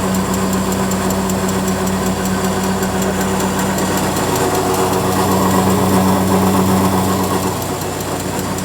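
Tractor engine running steadily under load, driving a tractor-mounted flour mill (atta chakki), with a steady low hum and a light regular ticking. It swells slightly about two-thirds of the way through, then eases.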